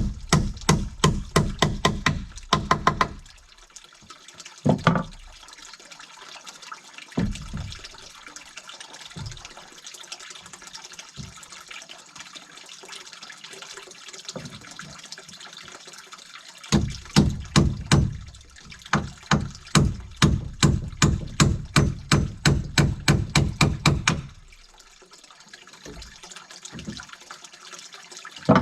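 Water splashing in quick rhythmic strokes, about three a second, in two bouts separated by quieter trickling and a few single splashes.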